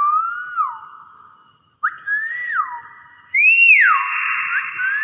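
Hill myna giving loud whistles: three whistled notes about one and a half seconds apart, each rising then falling and trailing into a harsh hiss, the third the loudest. Short rising whistles follow near the end.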